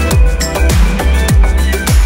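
Background music with a steady kick-drum beat over a deep, sustained bass line.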